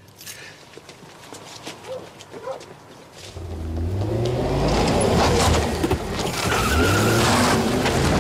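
A few faint clicks, then about three seconds in a car engine starts running loud and revving, its pitch climbing and falling as the car accelerates.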